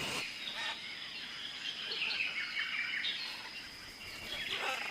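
Faint grasshopper sound in a natural outdoor ambience: a steady high-pitched insect trill, with scattered faint bird chirps.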